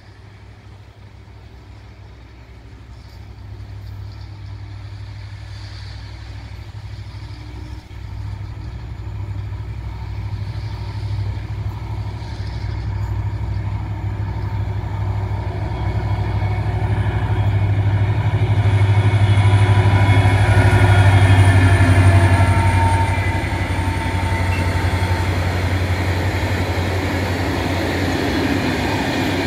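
ST44 'Gagarin' diesel locomotive (Soviet M62 type) approaching with its engine running under load. It grows steadily louder and is loudest about twenty seconds in as it passes. After that comes the steady rolling rumble of its train of loaded fuel tank wagons going by.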